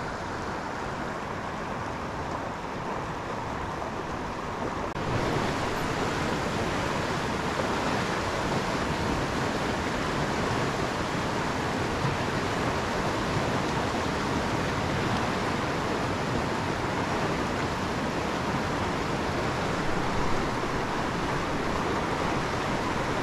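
Rushing water of the South Platte River running a little high in spring flow: a steady wash with no let-up, which gets louder and brighter about five seconds in.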